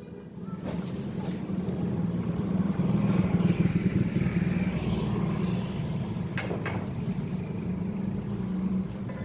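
Stick welding arc crackling steadily as the rod runs a bead on thin square steel tubing, over a low hum. It starts about half a second in.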